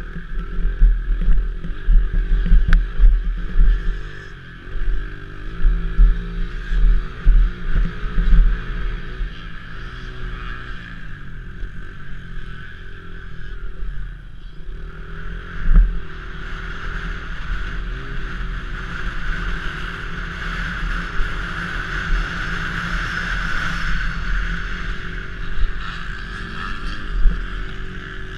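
Honda CRF70 pit bike's small air-cooled four-stroke single revving up and down as it accelerates and backs off along the track, with heavy low thumps and rumble from wind on the microphone.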